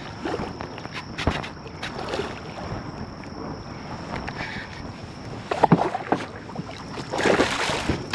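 A hooked redfish being reeled in to a jon boat on a baitcasting reel: water sloshing and small handling ticks, with wind on the microphone. Louder splashing and thrashing comes about five and a half seconds in and again near the end, as the fish is brought up out of the water.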